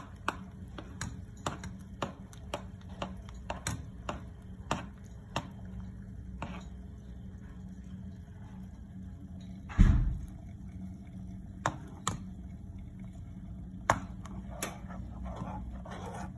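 Spoon tapping against a bowl in quick repeated strokes while mixing, slowing and thinning out, then one heavy thump a little before the middle, followed by a few scattered taps.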